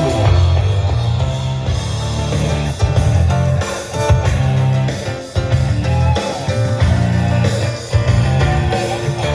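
Rock music with guitar over a heavy bass line and a steady beat.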